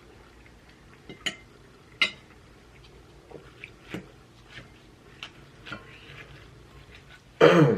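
Eating at a table: a fork or utensil clicking now and then against a plate, with soft chewing between. Near the end comes a brief loud sound that falls in pitch.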